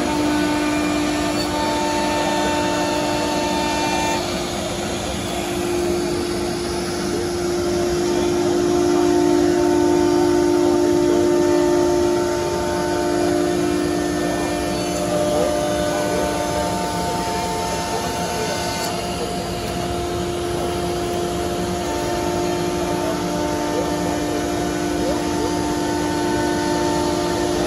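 CNC router spindle running under cutting load as it mills through a melamine-faced board: a steady whine over the rushing air of its dust extraction. It grows louder for a few seconds about a third of the way in.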